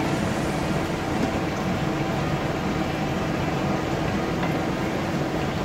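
Whole cardamom pods frying gently in ghee in a wok while a spatula stirs them, over a steady, even rushing hum.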